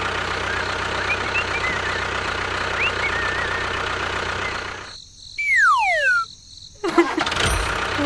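A steady engine running, like a tractor, with a few faint bird chirps over it. About five seconds in the engine cuts out and a cartoon whistle falls in pitch for about a second, followed near the end by a low thump.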